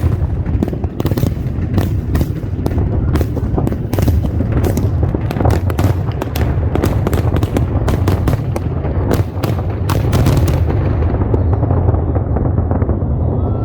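Fireworks going off in quick succession: many sharp cracks and bangs over a steady low rumble. The cracks stop about ten seconds in, and the low rumble carries on.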